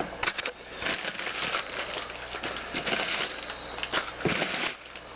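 Packing material rustling and crinkling as it is handled and pulled out of a box, with scattered short clicks and knocks.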